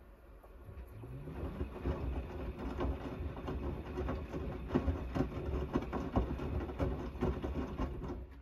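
Gorenje WNEI front-loading washing machine in its main wash. About a second in, the drum motor starts with a rising whine. The drum then turns, tumbling the wet, soapy laundry with sloshing and irregular thuds, and stops abruptly at the end.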